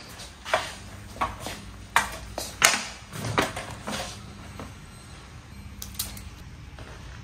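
Irregular sharp clicks and knocks, about a dozen, the loudest clustered in the first four seconds and one more about six seconds in, over a faint steady hum.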